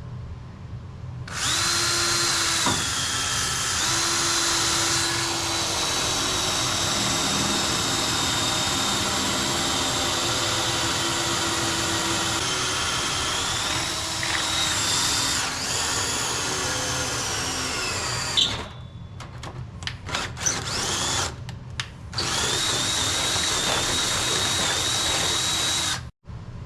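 Power drill boring through a quarter-inch metal plate, running steadily for about seventeen seconds, then a few short trigger bursts, then running again for about four seconds before stopping.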